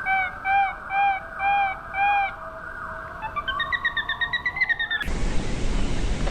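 A bird calling: five short arched notes about half a second apart, then a faster trilling run of higher notes. About five seconds in, it cuts off abruptly to a steady hiss.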